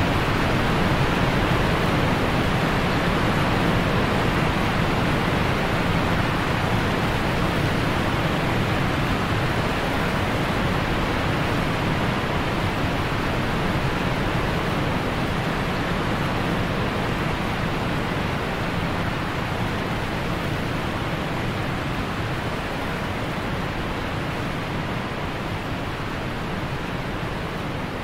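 Steady rushing of falling water from a waterfall, slowly getting quieter.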